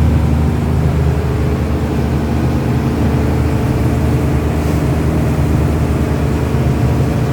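An engine running steadily at a constant speed, a low, even drone with a fast regular pulse.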